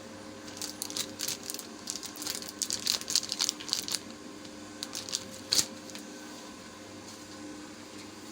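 Model 301 continuous band sealer running with a steady hum while a clear plastic bag crinkles and crackles as it is handled and fed through, in a dense run during the first half and a sharp crackle about five and a half seconds in.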